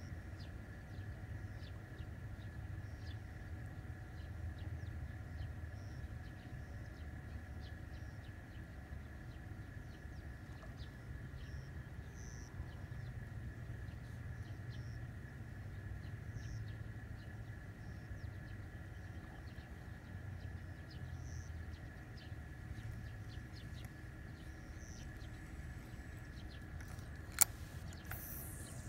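Outdoor ambience: a steady low rumble with short, high bird chirps scattered throughout, and one sharp click near the end.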